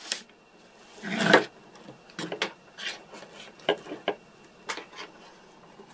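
Handling noise on a wooden workbench: small clicks, taps and rubbing as pieces and tools are moved and set down, with a louder rustle about a second in.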